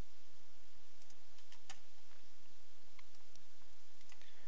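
A few faint, irregular computer mouse clicks over a steady background hiss and low hum.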